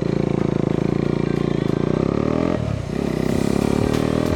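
Motorcycle engine pulling away under throttle, heard through a mic inside the rider's helmet. The engine's pitch climbs, dips about two and a half seconds in, and climbs again.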